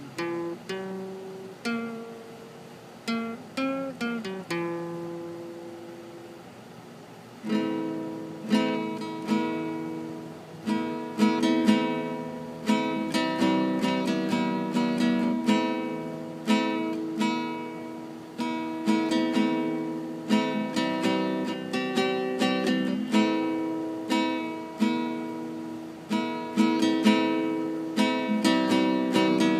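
Classical acoustic guitar played solo. A few sparse picked notes come first, then from about seven seconds in it settles into a steady rhythmic pattern of fuller, ringing chords.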